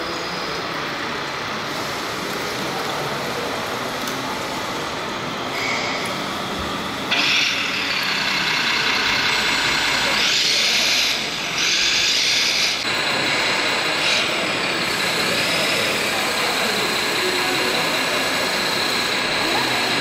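RC model truck's electronic sound module hissing like truck air brakes, with sudden bursts about seven seconds in and twice more between ten and thirteen seconds, over steady exhibition-hall noise.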